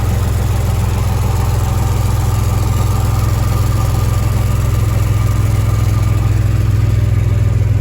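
GMC Sonoma pickup's exhaust, with a test pipe in place of the catalytic converter and a generic muffler, idling steadily with a low, even note.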